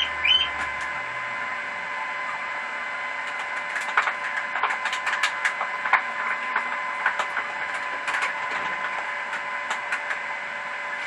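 A steady high machine whine that rises in pitch and settles as it starts, over a hiss, with irregular crackles and clicks.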